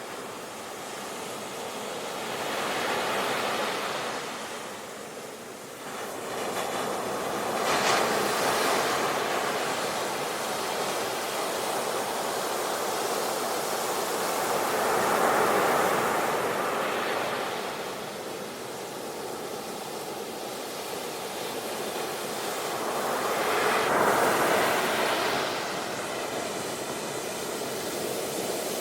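Ocean waves breaking and washing on a shore, swelling and fading in slow surges about every seven or eight seconds.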